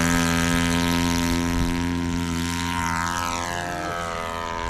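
Four-stroke nitro glow engine of an RC model airplane running at high throttle on its takeoff run, a steady buzz whose pitch falls and level sinks over the last couple of seconds as the plane moves away.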